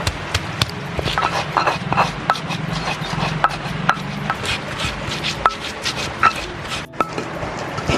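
Stone pestle crushing and grinding raw shallots, garlic, chillies and spices in a stone mortar (cobek and ulekan): irregular sharp knocks of stone on stone with scraping rubs between them, as the spice paste is ground smooth.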